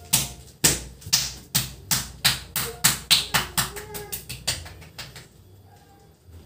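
A hand slapping a person's body in a rapid series of sharp smacks, quickening from about two to about four a second and stopping about five seconds in: percussive tapping during a nerve-pressing massage treatment.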